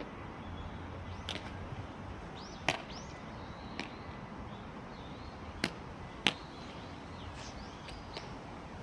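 A rubber baseball smacking into a leather glove about four times, a second to three seconds apart, as pitcher and catcher throw it back and forth.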